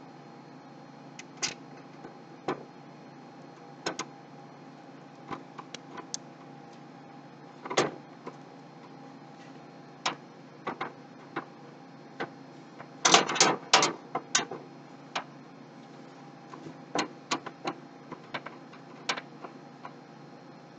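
Scattered small clicks and metallic taps of a screw being fitted and driven into a graphics card's slot bracket in a PC case, with a quick run of louder clicks about two-thirds of the way through.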